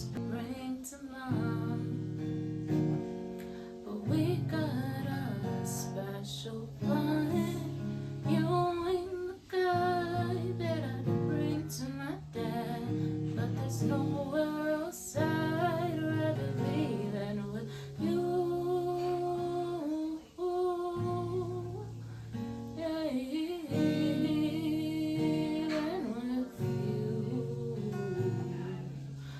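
Background song with strummed acoustic guitar and singing.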